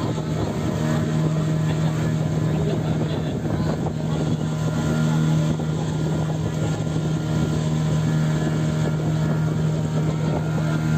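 Tourist boat's engine running steadily, a constant low drone with an unchanging pitch.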